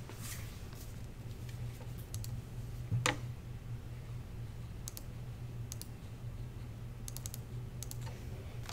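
Scattered keystrokes and clicks on a laptop keyboard, sparse and irregular, with a short quick run of keystrokes about seven seconds in and one sharper click about three seconds in. A steady low hum runs underneath.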